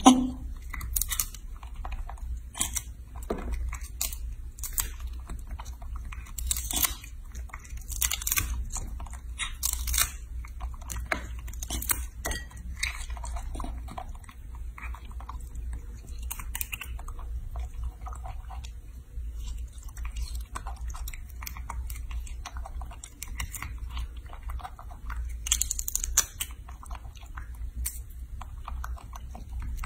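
A baby macaque biting into and chewing lychees: irregular crackly clicks and crunches as the rough peel is bitten and torn open and the fruit eaten, over a low steady hum.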